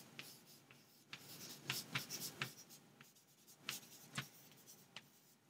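Chalk writing on a chalkboard: faint clusters of short, scratchy strokes and taps, with a brief pause between words.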